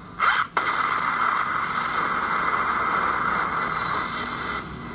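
Building collapsing in a demolition: a brief burst, then a steady rushing noise of falling rubble that drops away shortly before the end.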